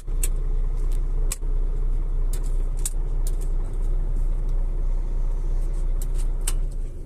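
Truck diesel engine idling, a steady low rumble heard from the cab, with a few light clicks; the level drops near the end.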